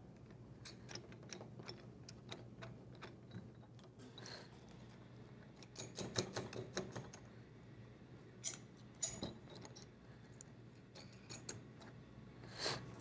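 Faint, scattered metallic clicks and taps as bolts and nuts are fitted and threaded by hand onto a three-piece ball valve's metal body, with small clusters of clicks about six, nine and eleven seconds in.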